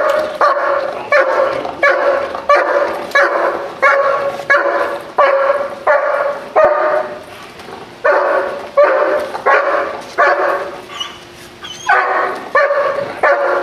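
German shepherd barking repeatedly and steadily, about three barks every two seconds, with a pause of about a second some seven seconds in. These are guard barks at an approaching man while the dog protects its seated owner.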